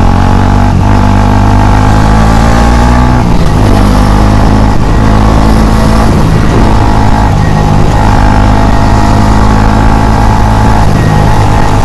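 KTM Duke 250's single-cylinder engine running loud at road speed, its pitch stepping up and down several times as the throttle and gears change.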